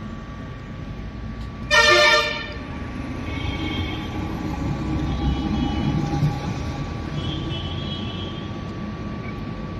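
A vehicle horn sounds once, a short loud blast about two seconds in. Under it, a post-tensioning jack's hydraulic power pack keeps up a steady hum and whine while the jack's ram is returned after stressing.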